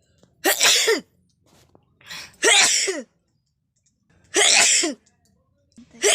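A person sneezing four times in a row, about every one and a half to two seconds, each sneeze ending with a voiced sound that falls in pitch. The second sneeze has a short lead-in breath just before it, and the last is cut off at the end.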